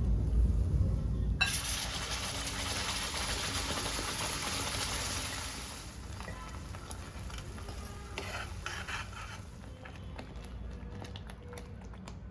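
Food sizzling in a hot pan: the sizzle starts suddenly about a second and a half in, as ingredients go into hot oil, and dies down after about four seconds. It is followed by quieter stirring with a spoon, with light scrapes and clicks against the pan.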